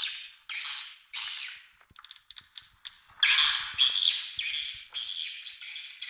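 Swiftlets twittering: rapid chirping calls repeated about twice a second, with a short break of faint clicks about two seconds in, then louder again.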